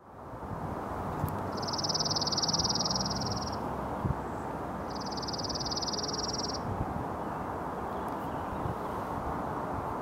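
Dark-eyed junco singing: two rapid trills held on one steady high pitch, each about two seconds long, the second starting about a second after the first ends, over a steady low background hiss.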